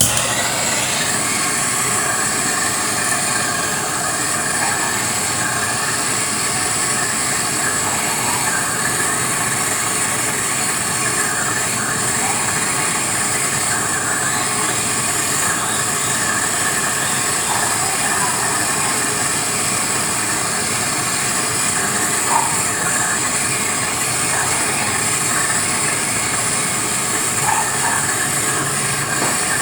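A loud, steady hissing noise that starts suddenly and runs on without a break.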